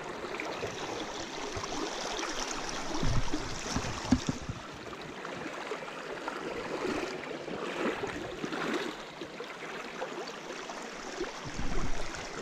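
Shallow, high-running stream rushing steadily over a rocky bed, with a few brief low thumps about three and four seconds in.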